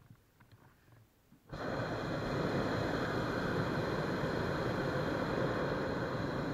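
Hot-air balloon's propane burner firing: after a few faint knocks, a loud steady rushing blast cuts in abruptly about a second and a half in and holds on without letting up.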